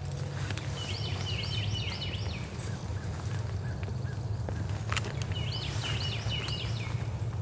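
Steady rain in woodland, with a songbird singing the same high, quick song of repeated looping phrases twice, about a second in and again about five seconds in.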